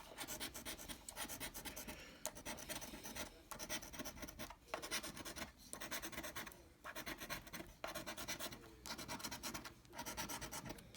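The latex coating is being scratched off a lottery scratch-off ticket in rapid, rasping strokes. The strokes come in short runs that pause briefly about once a second.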